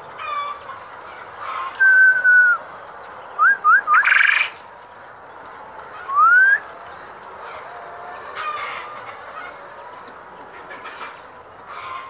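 Young quail calling in a pen. There are clear whistled peeps: one held, slightly falling note about two seconds in, three quick rising notes around three and a half seconds, and another rising note about six seconds in. Short scratchy chirping bursts come in between.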